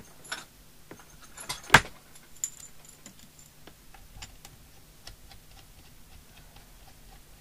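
Test leads and metal crocodile clips being handled and clipped on, giving light metallic jangling and scattered clicks, with one sharp click just under two seconds in.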